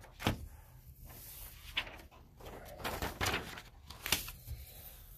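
Faint handling noises at a desk in a small room: a sharp click just after the start, then scattered lighter taps and rustling.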